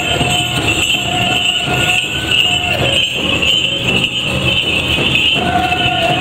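Powwow drum group beating a big drum and singing long held notes of a hoop dance song, with bells on dancers' regalia jingling throughout.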